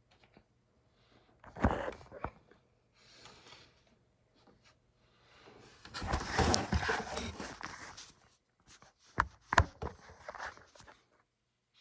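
A person hiccuping: a few short, sudden hiccups spaced several seconds apart, with a noisy stretch of about two seconds midway.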